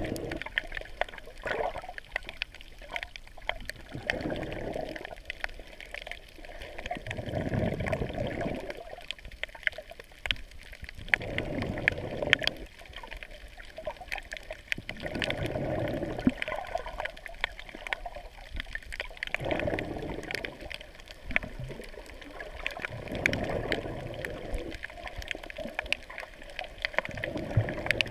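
Muffled water sloshing, heard underwater through a waterproof camera housing. It swells and fades about every four seconds, with scattered faint crackling clicks throughout.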